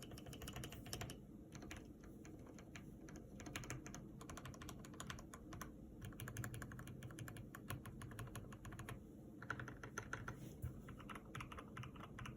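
Ardor Guardian mechanical keyboard with lubed switches being typed on: fast runs of keystroke clicks, broken by brief pauses.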